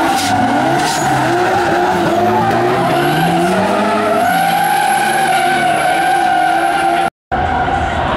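Drift cars sliding with their engines revving, the pitch climbing and falling as the throttle is worked, over a continuous tyre squeal. The sound cuts out briefly about seven seconds in.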